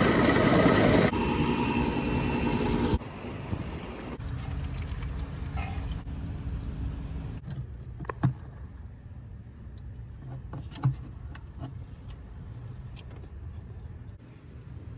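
A drain-cleaning machine runs with its cable turning in a flooded sewer cleanout, cutting off about three seconds in. After that only a low hum remains, with a few sharp clicks as a xenon headlight bulb and its retaining ring are handled, two louder clicks standing out about eight and eleven seconds in.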